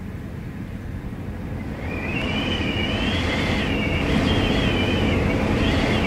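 Wind howling through a door: a steady low rumble of gusting wind. About two seconds in it grows louder, and a high-pitched whistle that wavers up and down comes in.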